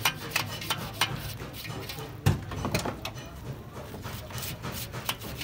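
A series of irregular light clicks and taps, with one heavier thump about two seconds in.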